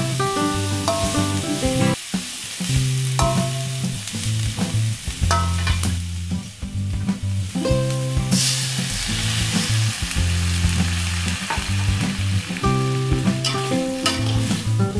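Oncom and leunca sizzling in a hot wok while a metal spatula stirs and scrapes them, with a louder burst of sizzling about eight seconds in as the water goes in. Background music with a bass line plays throughout.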